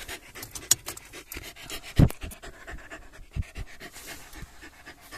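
Corgi panting, with one louder thump about two seconds in.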